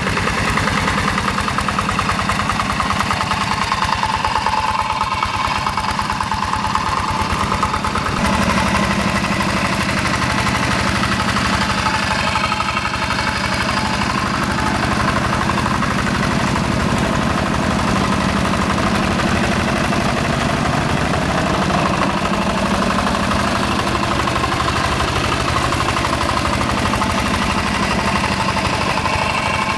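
Single-cylinder diesel engine of a two-wheel hand tractor running steadily under load as the tractor works a muddy rice paddy. Its tone shifts once, about eight seconds in.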